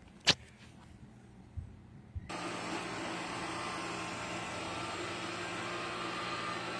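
A sharp click, then about two seconds in the Minibot X5 robot vacuum cleaner starts up and runs steadily, its suction fan giving a constant whirring hum.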